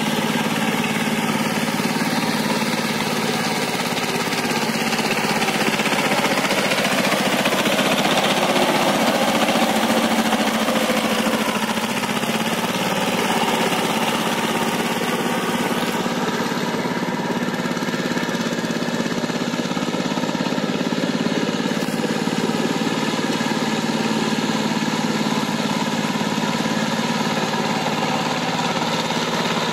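Two-wheel power tiller's single-cylinder diesel engine running steadily under load while cultivating.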